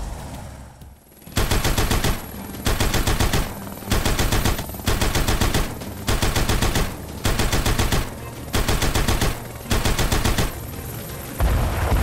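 Machine-gun fire sound effect in repeated bursts of rapid shots, each under a second with short gaps between. Near the end a heavier low blast comes in.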